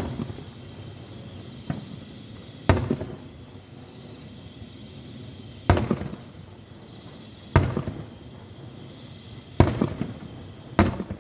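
Fireworks going off: about seven sharp bangs spread unevenly over eleven seconds, each followed by a short rumbling tail.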